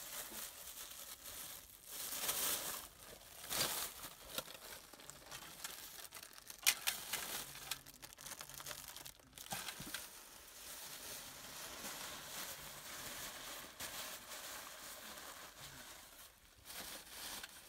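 Plastic bags being crinkled and rustled by hand while thin flatbread is unwrapped and packed away, with irregular crackles, the sharpest about seven seconds in.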